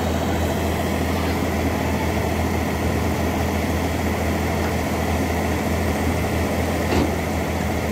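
CAT excavator's diesel engine running steadily with a low hum, the bucket held still. A single sharp knock sounds near the end.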